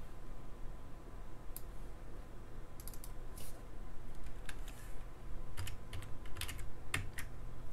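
Computer keyboard typing: a handful of scattered keystrokes, coming more often in the last few seconds, over a faint steady hum.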